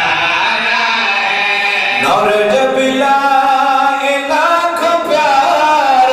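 A zakir's single male voice chanting verse unaccompanied into a microphone, holding long melodic notes that step up and down in pitch, amplified through a sound system.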